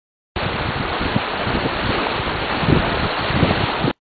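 Wind buffeting a camcorder microphone outdoors: a steady rushing hiss with irregular low rumbling gusts. It starts about half a second in and cuts off suddenly near the end.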